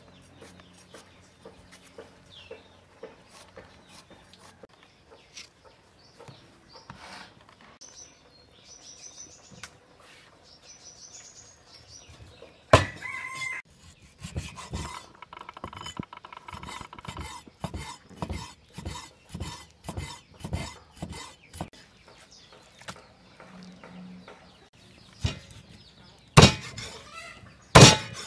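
A cleaver chopping on a wooden chopping board: soft knife cuts at first, then a quick run of chops through raw chicken, and a few loud heavy chops through a fish near the end. Chickens cluck in the background.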